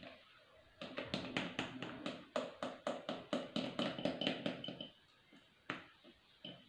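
Spatula scraping cake batter out of a mixing bowl into an aluminium ring cake mould, in quick repeated strokes, about five or six a second, for roughly four seconds. One more single tap follows near the end.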